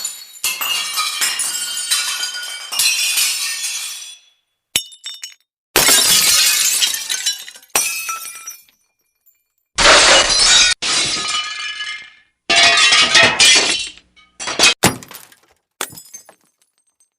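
Glass breaking: about six separate shattering crashes in a row, each followed by a second or two of tinkling shards, with dead silence between them.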